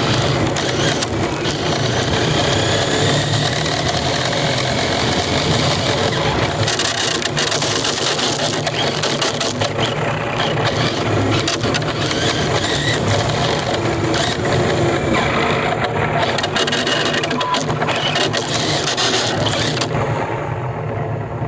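Radio-controlled car running: a steady, dense rattling noise with a faint small-motor whine that rises and falls in pitch.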